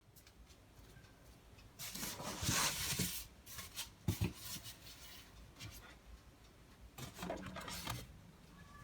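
Rubbing and rustling of items being handled during kitchen prep, in two spells about two seconds and seven seconds in, with a few light knocks between them.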